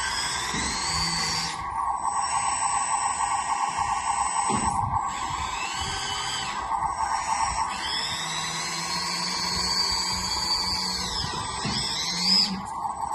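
Electric motors of a 1/12-scale metal hydraulic RC road roller whining, the pitch rising and falling with the throttle and cutting out briefly several times, over a steady buzz.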